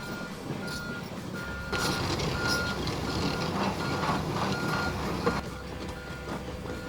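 Komatsu PC238 excavator's warning alarm beeping in a steady on-off pattern, a little more than once a second, over its diesel engine running. The machine noise grows louder from about two seconds in and drops back about five seconds in, as the excavator works.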